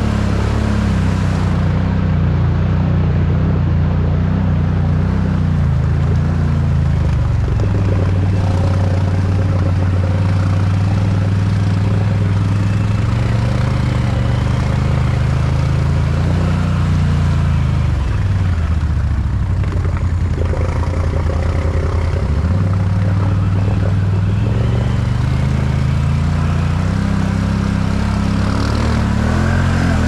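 Can-Am Outlander 1000 ATV's V-twin engine running under way, its pitch rising and falling with the throttle, dropping to a low note a little past halfway and then climbing again.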